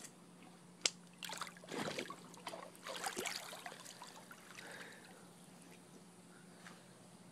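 A dog splashing into a swimming pool and paddling: irregular splashes and dribbling water from about a second in until about four seconds, then only faint lapping water.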